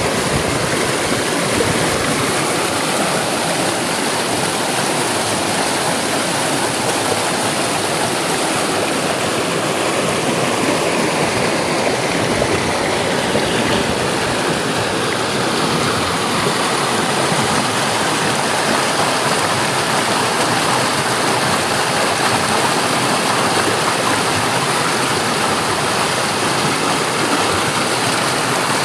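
Steady rush of running water, like a fast stream flowing over rocks.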